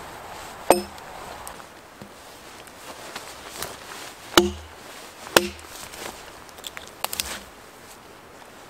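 Axe chopping branch stubs off a felled log: three sharp, widely spaced strikes, each with a brief ring, then a quick run of lighter knocks near the end.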